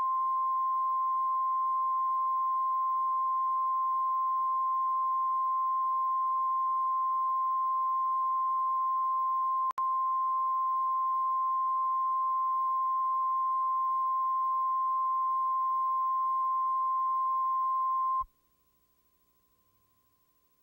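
Steady 1 kHz line-up test tone accompanying SMPTE colour bars on a videotape. It drops out for an instant about halfway through, then stops abruptly near the end, leaving near silence.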